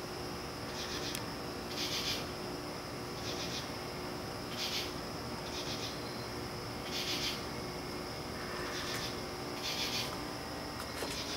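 Night insects calling: short raspy high-pitched chirps about once a second, over a steady high tone.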